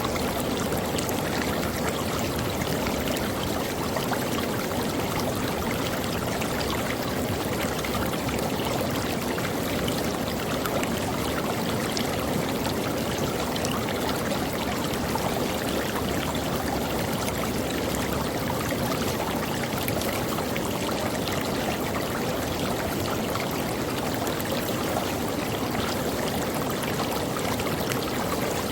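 Creek water flowing and splashing over rocks, a steady, unbroken rush with fine trickling detail.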